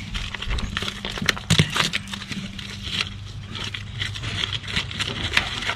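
Recycled stone hardcore rattling and crunching as it is shifted and spread, a run of irregular small clicks and crackles over a steady low hum.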